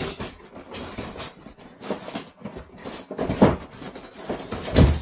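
A cardboard monitor box being torn open and its packaging handled: irregular rustling and scraping, with two louder thumps, one about three and a half seconds in and one near the end.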